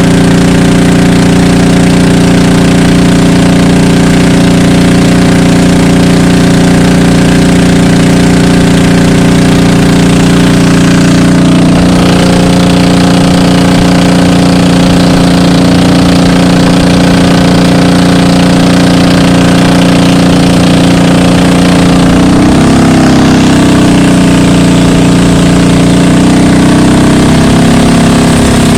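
Motorized bangka's engine running steadily and loudly under way, its note shifting about twelve seconds in and wavering again a few seconds past the twenty-second mark.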